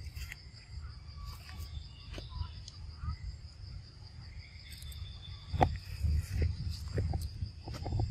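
Steady high-pitched trill of crickets, with a low rumble beneath. In the second half a few sharp clicks and knocks break through, the loudest about five and a half seconds in.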